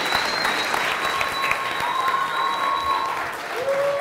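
Theatre audience applauding, a dense and steady patter of many hands clapping.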